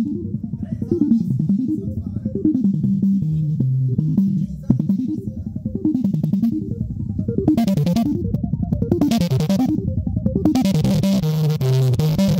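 Music played loud through a car-audio sound box (paredão) with an Eros Target Bass 4K woofer, mid-range horns and tweeters: a deep bass line sliding up and down in repeated sweeps, with bursts of high sound coming in after about seven seconds and the full track filling in near the end.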